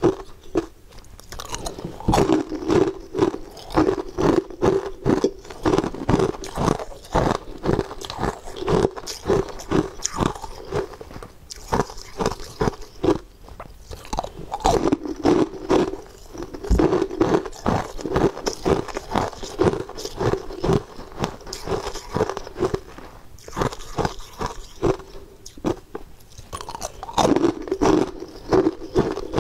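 Frozen blue ice cubes being bitten and chewed: a dense run of sharp, loud crunches as the ice cracks between the teeth, with a few short pauses.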